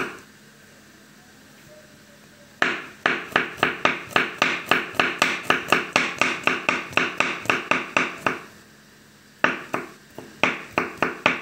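Chef's knife rapidly chopping garlic cloves on a wooden cutting board, about four to five even chops a second. The chopping comes in two runs, with a pause of about a second between them.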